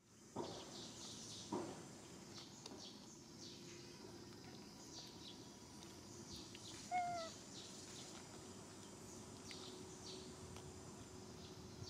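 A macaque gives one short, slightly falling squeak about seven seconds in, over faint high chirps in the background.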